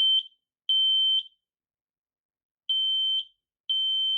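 Kidde P4010ACLEDSCOCA smoke and carbon monoxide alarm sounding its temporal-three smoke alarm: loud, high-pitched half-second beeps, three to a group about a second apart, then a pause of about a second and a half before the next group. This three-beep pattern is the standard signal for smoke or fire, not carbon monoxide.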